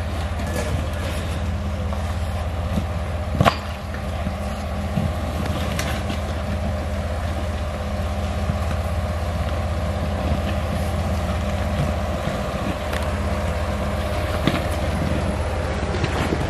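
A Jeep's engine idling steadily, with a single sharp click about three and a half seconds in.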